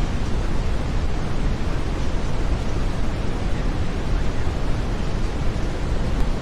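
Steady brown noise: an even, deep hiss with most of its weight in the low end.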